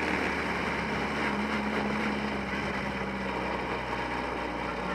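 Formula Ford open-wheeler's engine running at a steady pitch, heard from the cockpit, with wind rushing over the microphone.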